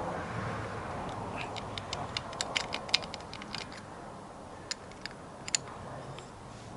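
Irregular small clicks and taps, thickest from about one and a half to four seconds in and sparser after, as a disc is fitted and tightened down on a disc grinder. The grinder's motor is not running.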